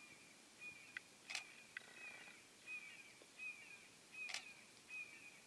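Faint, short, high chirps repeating a little less than once a second, from a calling animal. Over them comes a sharp camera-shutter click about every three seconds as the camera shoots a time-lapse.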